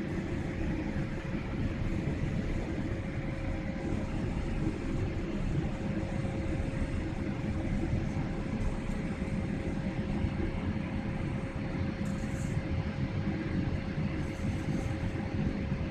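Airliner cabin noise during descent: a steady rumble of jet engines and rushing air heard from inside the cabin, with a constant hum running through it. A couple of brief, faint hisses come near the end.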